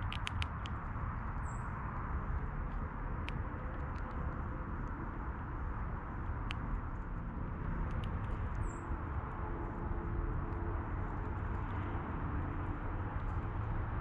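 Scattered sharp clicks and taps of animals picking at and cracking seed at a backyard feeder, a few bunched together at the start and near the end, with two brief high-pitched squeaks, over a steady low background rumble.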